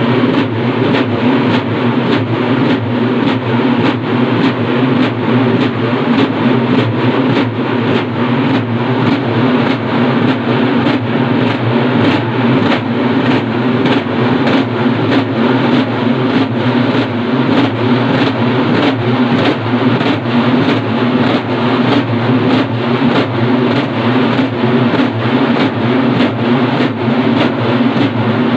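A large ensemble of urumi drums (urumulu) playing together: a loud, dense, continuous din over a steady quick beat.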